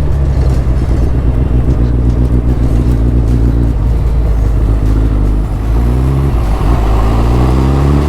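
2023 Suzuki Hayabusa's inline-four engine running hard at road speed. Its note dips briefly about five and a half seconds in, then the revs climb again toward the end.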